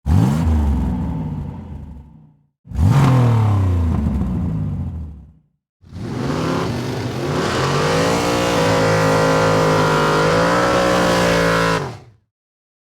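Car engines revving in three abruptly cut pieces: two sharp revs that fall away, then a rev that climbs and holds high for several seconds before cutting off.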